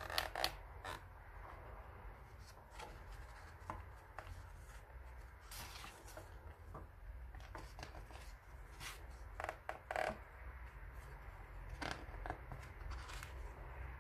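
Pages of a graphic novel being turned: short paper rustles and flaps every few seconds, the loudest near the start and about ten seconds in.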